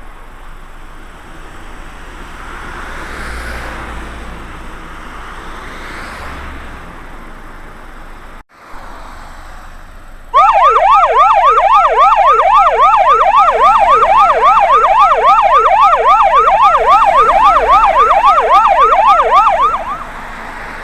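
Electronic yelp siren, its pitch sweeping rapidly up and down about three times a second. It starts suddenly about halfway through and is loud, after a stretch of faint steady outdoor background noise.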